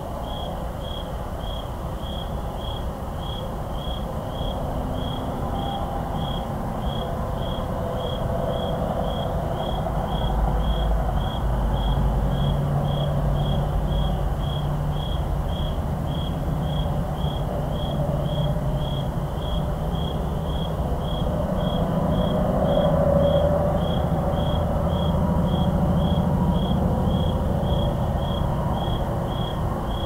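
Crickets chirping steadily, about two chirps a second, over the low rumble of distant highway traffic that swells twice and eases off again.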